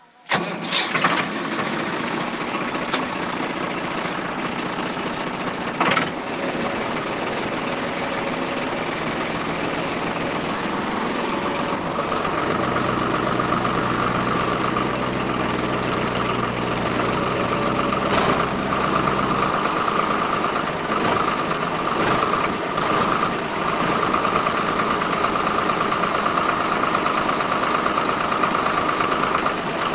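Small DC gear motors on a model tractor and its rotary tiller running steadily with a buzzing whine, which grows louder about halfway through. A few sharp clicks come through, about a second in, near six seconds and near eighteen seconds.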